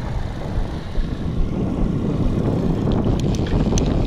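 Steady low rumble of wind buffeting the microphone over a running boat motor. About three seconds in, a fishing reel starts clicking in a short irregular run of sharp ticks while a king salmon is being played.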